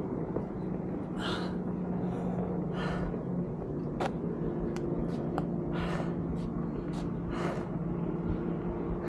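A person breathing heavily, with a breath about every one and a half seconds, over a steady low hum and a few light clicks.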